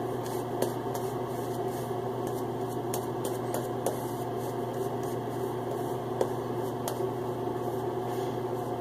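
Steady machine hum with a few faint clicks.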